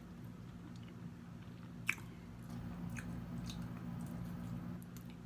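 A person chewing and biting food close to the microphone, with a few sharp clicks of the mouth, over a steady low hum.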